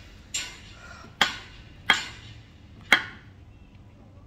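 Kitchen knife chopping a vegetable on a wooden cutting board: four sharp strikes of the blade against the board, roughly a second apart, the last three louder than the first.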